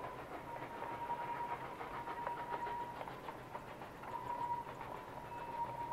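Distant K36 narrow-gauge 2-8-2 steam locomotive No. 487 working its train, heard as a rapid, uneven patter of exhaust beats and rail noise, with a steady high tone over it.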